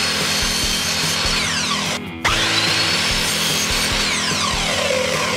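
Ryobi sliding mitre saw's electric motor whining at full speed, then winding down with a falling pitch about a second and a half in. It is switched on again at about two seconds, runs straight up to speed, and winds down again near the end.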